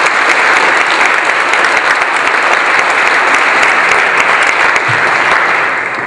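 Audience applauding: steady clapping that begins to fade near the end.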